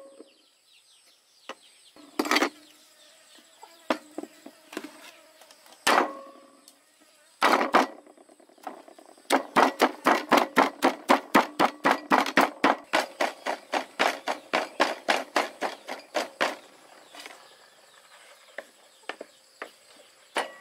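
Two cleavers chopping raw pork into mince on a wooden cutting board. A few separate knocks come first; then, about nine seconds in, a fast, even run of strikes at roughly four a second lasts several seconds and thins to lighter chops near the end.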